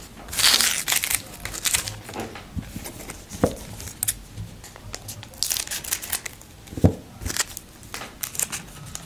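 A trading-card pack wrapper being torn open and crinkled by hand, with irregular crackling rustles throughout.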